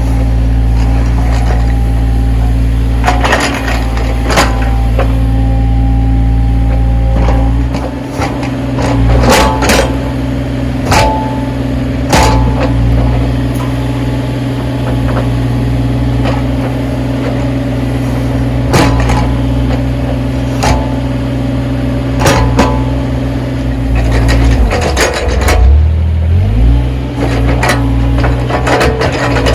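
Backhoe's diesel engine running steadily while it works, with scattered sharp knocks and clanks. About 25 seconds in, the engine note sags and then comes back up.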